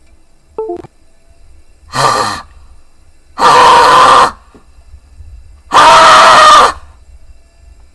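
A young man's short groan, then two long, loud screams of about a second each, yelling in frustration.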